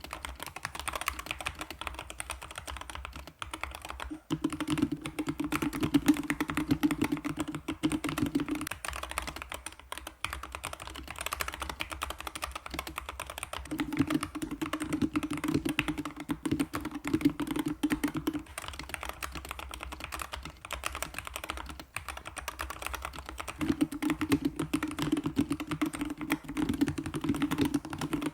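Continuous rapid typing on a Corsair K70 MAX mechanical keyboard with magnetic switches, which have been fully lubricated and sound-dampened with foam. In three stretches of a few seconds each, a low steady hum sits under the keystrokes.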